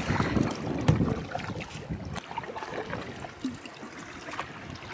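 Choppy wind-blown lake water slapping and splashing against a canoe's hull in an irregular patter, with wind gusting on the microphone.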